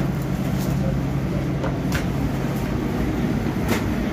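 Steady mechanical hum of commercial kitchen equipment, with a few short clicks and knocks scattered through it.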